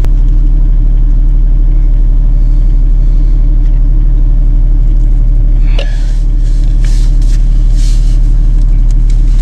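An engine running steadily at constant speed, a loud low drone. A sharp click about six seconds in, with a few lighter ticks after it.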